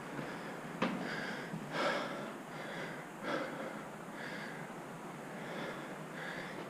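A person breathing audibly, several breaths in and out about a second apart, with a single click about a second in.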